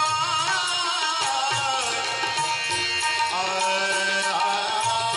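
Bhajan music with tabla drumming under a steady held drone and a melody line that glides up and down, a break between sung verses.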